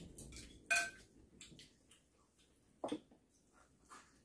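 A chopstick clinks against a small ceramic plate about a second in, with a brief ring. There are faint eating sounds and a short knock near three seconds.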